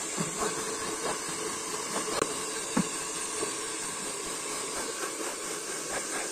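Hand-held hair dryer running on wet hair, a steady rush of blown air. The narrator calls the dryer's noise very irritating and loud enough to make the ears hurt.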